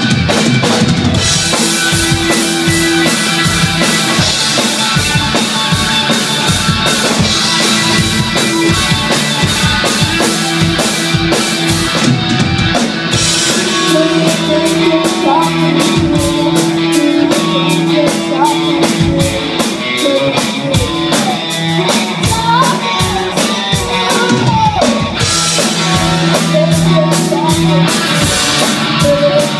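A live rock band playing a song on electric guitars, bass guitar and drum kit, with a steady drum beat throughout. A vocalist sings over the band from about halfway through.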